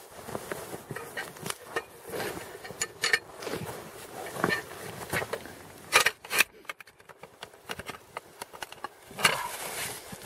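Footsteps crunching in packed snow and handling noises as an interlocking aluminum traction mat is set under a tire, with two sharp metallic clacks about six seconds in.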